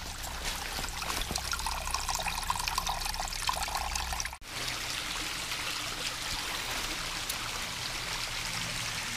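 Spring-fed water trickling steadily. The sound breaks off for a moment about four and a half seconds in.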